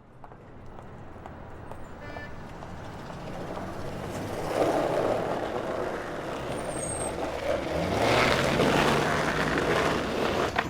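City street traffic fading in from silence and building into a loud wash. A heavy vehicle's engine rises in pitch as it pulls away about eight seconds in.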